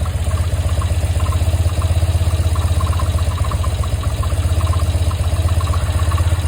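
1980 BMW R100RT's air-cooled flat-twin engine idling steadily, with an irregular light ticking that comes and goes in clusters over the engine beat. That ticking is a weird noise whose cause the owner has not found.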